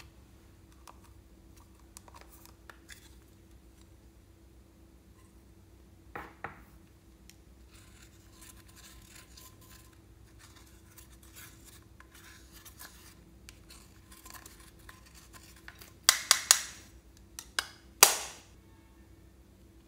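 A small tool scraping pressed eyeshadow out of a plastic compact, giving a faint scratching. Near the end come about five sharp taps and clicks of the plastic compact against the glass bowl.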